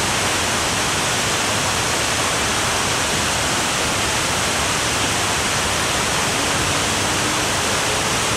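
Water pouring over a low dam or weir: a loud, steady rushing that never lets up.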